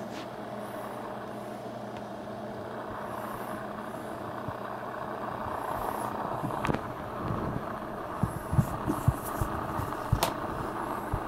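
Steady low hum with a faint hiss. Over the last few seconds come several dull bumps and knocks, handling noise from a hand working close to the microphone.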